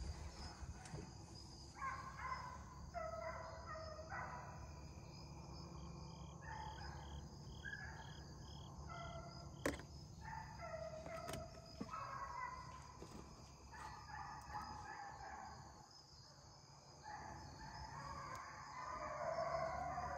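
A pack of deer hounds baying in long drawn-out bawls, several voices overlapping and coming on and off while they run a deer. A bird chirps about eight times in an even series near the middle, and there is one sharp click about halfway.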